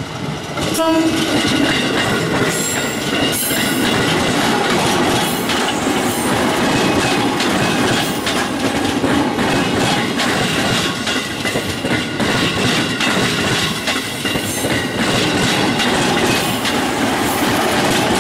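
JR 205 series electric commuter train passing close by, its wheels clattering and clacking over the rails with occasional high squeals. A short horn blast sounds about a second in as the train comes up loud.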